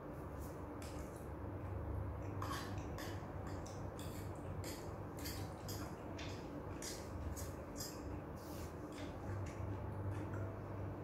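Eating fried flat rice noodles with a spoon and fork: scattered small clicks and scrapes of the utensils against the plate, mixed with chewing, over a low steady hum.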